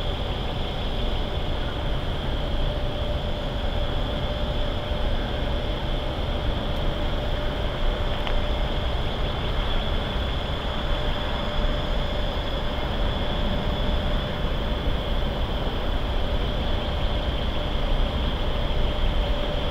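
Steady low rumble of an approaching diesel freight train still far off, growing slightly louder near the end, under a constant mechanical hum.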